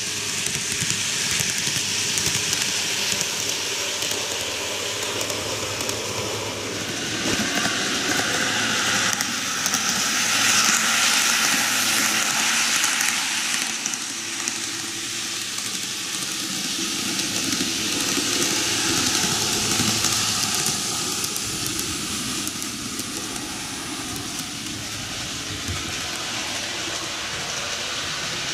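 TOMIX N-gauge model trains running on track: a steady whir and rolling hiss of the small motors and wheels on the rails, swelling for a few seconds about a third of the way in, then easing.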